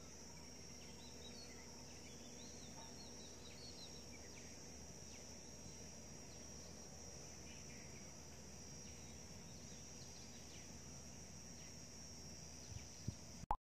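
Faint outdoor rural ambience: a steady high insect drone with scattered small bird chirps. A few short knocks near the end.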